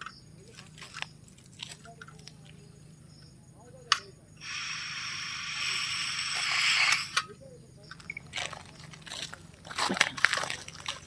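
Butane gas hissing from a pocket camping stove on its canister for about three seconds, growing louder and then cut off suddenly. Sharp clicks and knocks from handling the stove and canister come before and after it.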